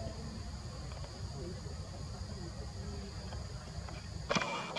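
Steady chorus of insects, a continuous high buzz at two pitches over a low rumble. A brief sharp sound near the end is the loudest moment.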